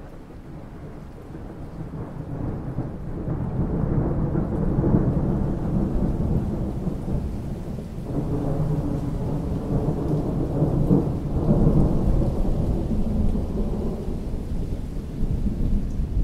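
Thunder rolling over steady rain falling on water. The rumble builds over the first few seconds, eases briefly about eight seconds in, then swells again.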